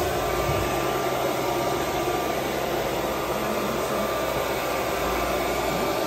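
Steady rushing machine noise of a CNC router with a vacuum table running, with a faint thin whine coming in shortly after the start.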